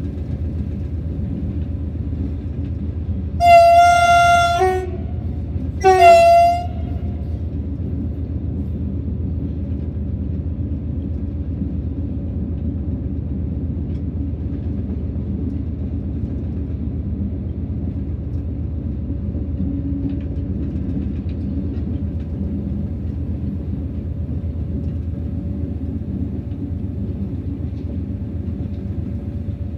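BB 60000 diesel-hydraulic locomotive running along the line, heard from the cab as a steady low rumble. A few seconds in, its horn sounds twice: a longer blast and then a short one.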